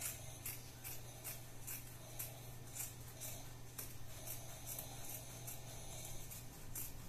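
Scissors snipping through fabric in quick, evenly spaced cuts, about three a second, trimming excess seam allowance. A low steady hum runs underneath.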